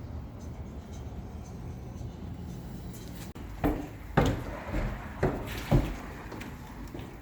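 A series of five dull thuds and knocks, starting about halfway through and spaced roughly half a second apart, over a low steady rumble.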